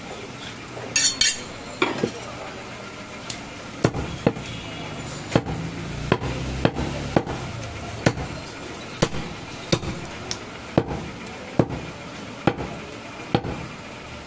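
Butcher's cleaver chopping mutton into chunks on a wooden chopping block: a steady run of sharp chops, about one every three-quarters of a second. A short scraping sound comes about a second in, before the chopping starts.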